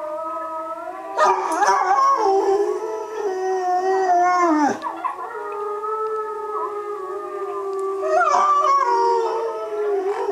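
Long, overlapping howls: wolf howls playing from a laptop's speakers, with a bullmastiff howling along with them. New howls come in about a second in and again near eight seconds.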